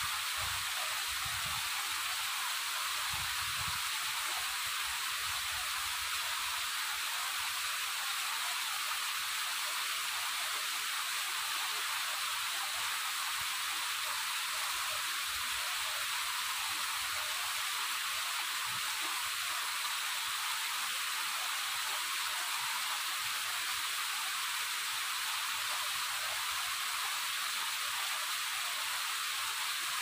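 Waterfall rushing steadily: an even, unbroken high hiss of falling water with almost no low rumble.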